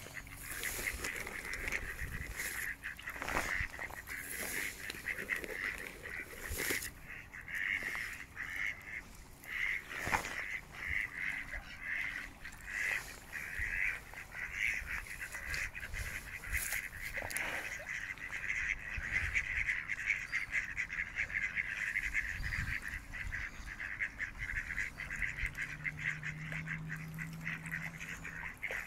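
A group of mallard ducks quacking and chattering almost without pause. A faint low steady hum comes in near the end.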